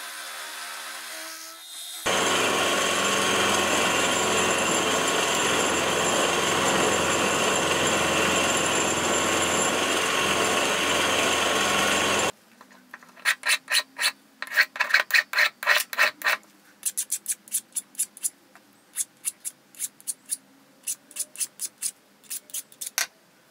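Milling machine with a roughing end mill cutting a steel block under coolant: after a short quieter stretch the cut comes in loud and steady for about ten seconds, then stops abruptly. A run of short, sharp scraping strokes follows, several a second with pauses, like the block's edges being rubbed or filed by hand.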